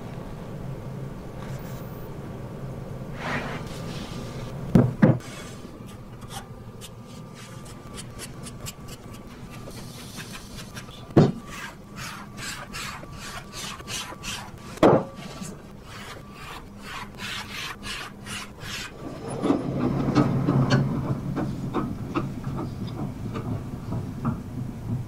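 Wood and paper being handled on a workbench: a paper template and plywood sheet sliding and rubbing, with a few sharp wooden knocks. A run of quick scraping strokes comes in the middle, and louder rubbing near the end.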